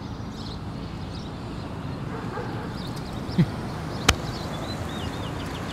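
Soundtrack ambience: a steady low rumbling noise with faint high chirps over it. A short, loud falling low tone comes about three and a half seconds in, then a single sharp click about half a second later.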